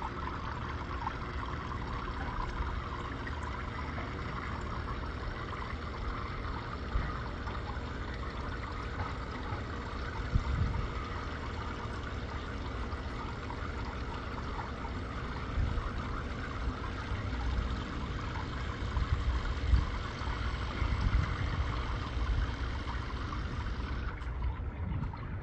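Steady trickling and splashing of water circulating in a 200-gallon outdoor aquarium pond, with occasional low thumps.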